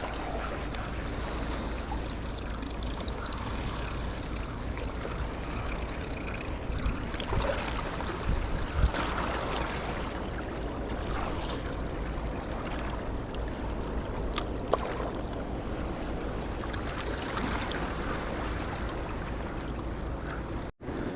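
Steady rushing of the Ohio River pouring out below Meldahl Dam, an even wash of water noise.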